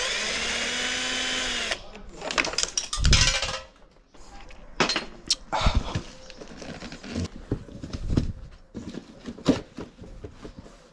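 Electric drill running for about the first two seconds with a whine that bends slightly in pitch, then stopping. After it come a loud clatter and a run of scattered knocks and clicks from parts being handled.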